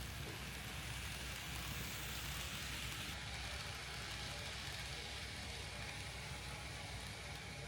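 Kato N-scale E8 Series Shinkansen model train running on layout track, a steady soft rolling hiss with a low hum underneath.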